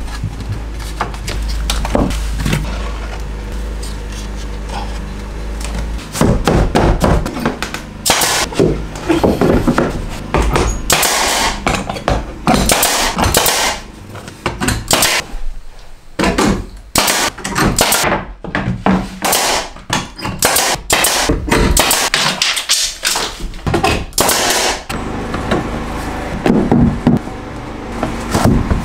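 Carpentry work in a small room: irregular sharp knocks and clacks, some in quick runs, as wall boards are fastened with a pneumatic brad nailer and hammering. A steady low hum sits under the first several seconds.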